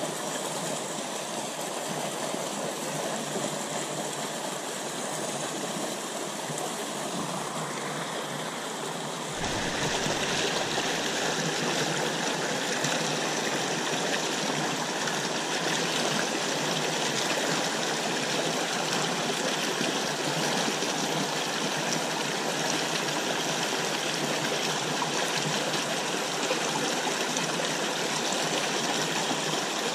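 Fast water rushing through a narrow rocky stream channel, a steady hiss of rapids. It gets louder and fuller about nine seconds in, heard from right above the churning water.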